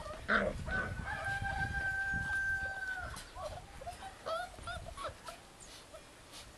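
Bearded Collie puppy whining: one long, steady, high whine of about two and a half seconds, then a string of short whimpers and yelps. A low rumble sits under the long whine.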